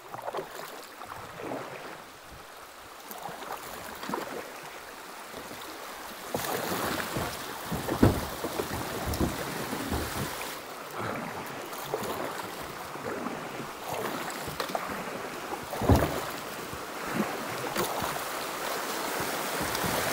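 Water rushing and splashing around a kayak as it runs shallow river rapids, getting louder a few seconds in, with wind on the microphone. A couple of sharp knocks stand out, one near the middle and one later on.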